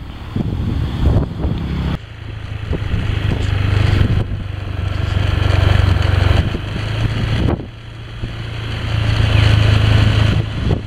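Motorcycle engine running under way, a low steady hum that swells and drops back about three times, beneath a rushing noise of wind and road.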